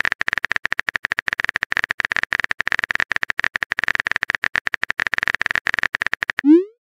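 Rapid keyboard typing clicks from a texting-app sound effect, many taps a second. They stop about six seconds in, followed by a short sound with a rising pitch, the loudest moment.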